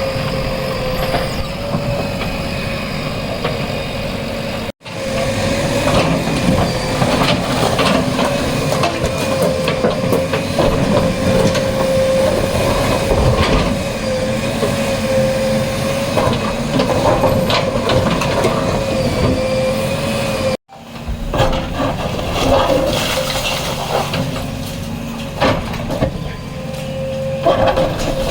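Bulldozer engine running with a steady wavering whine, with frequent knocks, cracks and crunches of masonry being broken during demolition. The sound cuts out abruptly twice.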